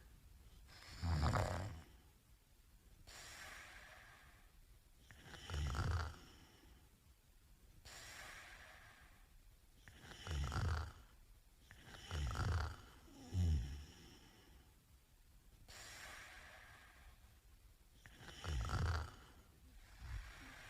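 A man snoring in his sleep: loud, low snores come about every two to five seconds, six in all, with softer breathy breaths between them.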